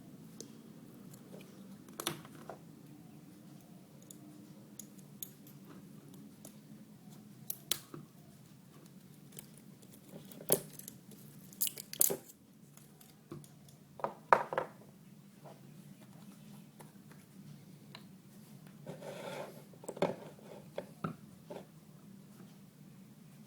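Scattered clicks, taps and small knocks of hands handling a Canon 50D DSLR while alcohol is worked in around its shutter button, with a short rustle late on, over a steady low hum.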